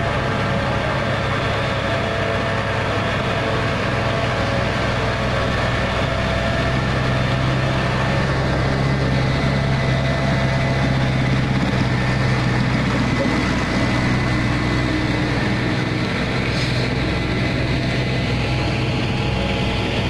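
Heavy diesel truck engine running steadily, a low, even drone that holds one pitch throughout.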